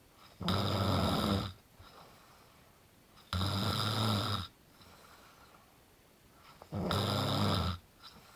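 Heavy snoring: three loud snores, each about a second long and coming roughly every three and a half seconds, with faint breathing between them.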